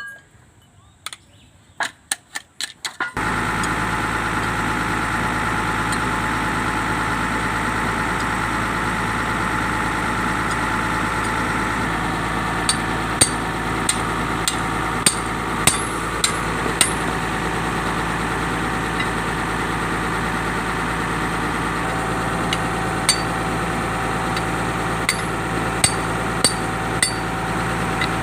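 A few sharp metal clicks, then a heavy machine's engine comes in abruptly about three seconds in and runs steadily at idle. Through the second half come irregular sharp metal-on-metal hammer strikes, as on excavator track parts being fitted.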